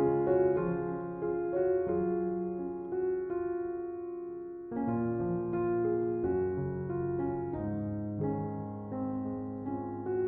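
Slow, calm piano music, notes struck one after another and left to ring, with a brief softer dip just before a new phrase starts about halfway through.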